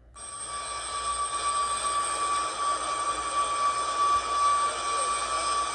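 Jet aircraft engines running on an airfield: a steady high whine over a constant rush of noise. It cuts in abruptly just after the start.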